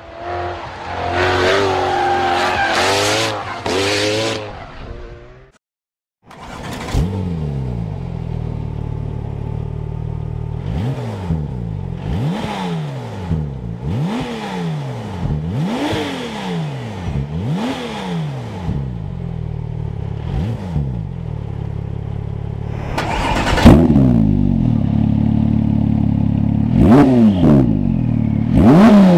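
Porsche 997 GT2 RS twin-turbo flat-six idling and being blipped over and over, each rev rising and falling back within a second or two. The revs get louder and higher from about two-thirds of the way in. It opens with a few seconds of a different wavering pitched sound, cut off by a brief silence.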